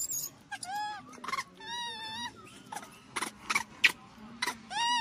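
Baby macaque crying: three high arching calls, the middle one longer and wavering, among short clicks.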